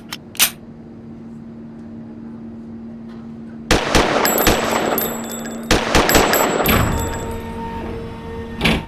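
Gunfire sound effect: a couple of single shots at the start, then two long bursts of rapid fire about four and six seconds in that die away, and one more bang near the end.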